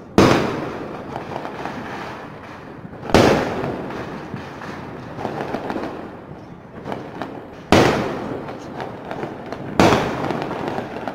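Aerial fireworks shells bursting: four loud bangs a few seconds apart, each trailing off over a couple of seconds, with smaller pops between them.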